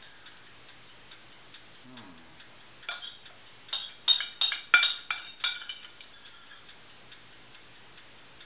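Metal spoon clinking and scraping against a ceramic bowl while herb paste is scraped out of it: a quick run of sharp ringing taps from about three to five and a half seconds in.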